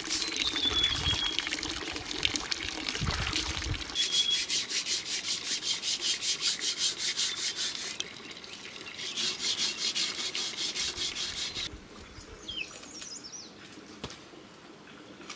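Rhythmic rubbing or scrubbing strokes, about four a second, in two spells, with a few bird chirps near the end.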